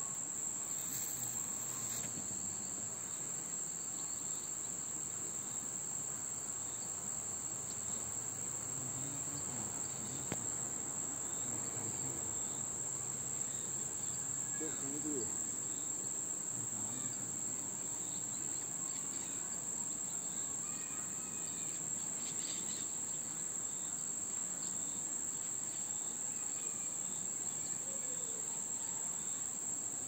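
Steady, high-pitched insect drone, a continuous chorus of crickets or cicadas that holds unbroken throughout.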